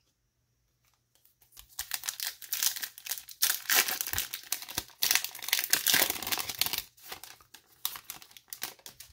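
Foil wrapper of a Bowman Chrome trading-card pack being torn open and crinkled by hand. A dense crackling starts about a second and a half in and thins to scattered crackles near the end.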